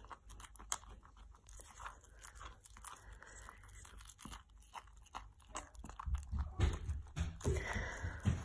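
A stick stirring a stiff cornflour, water and glue slime mixture, making irregular clicks and scrapes. It gets louder with low thumps from about six seconds in.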